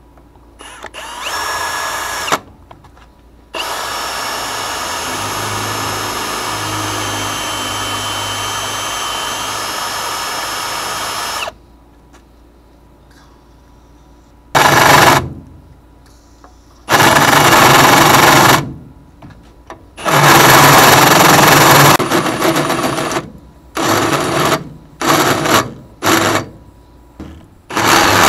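Milwaukee M18 cordless drill boring a hole through a steel truck frame rail. A long steady run of several seconds comes first, then after a pause a series of louder, harsher bursts as the trigger is squeezed on and off, the last ones short.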